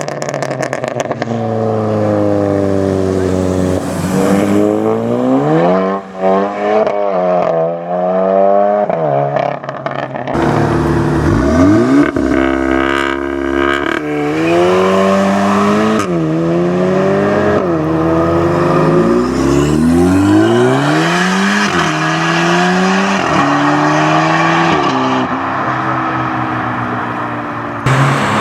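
Volkswagen Golf R / GTI turbocharged four-cylinder engine and exhaust being revved and accelerated hard. The pitch climbs and falls in repeated rev bursts at first. In the second half the revs rise in a series of pulls, each cut off by a sharp drop as the gearbox shifts up, five or six times.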